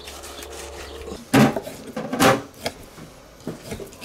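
Kitchen knife cutting raw tuna loin on a wooden board: two loud knocks of the blade meeting the board, about a second and a half and two seconds in, then a few lighter taps and clicks.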